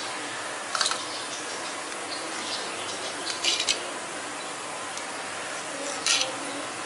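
Onions frying in oil in a kadhai, a steady sizzle, with three short sharp clicks: about a second in, midway and near the end.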